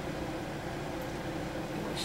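Steady low mechanical hum of room background noise, with one faint tick about halfway.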